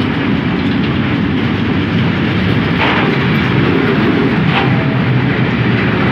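Container flat wagons of an intermodal freight train rolling past close by: a loud, steady rumble of steel wheels on the rails, with two sharp clacks near the middle.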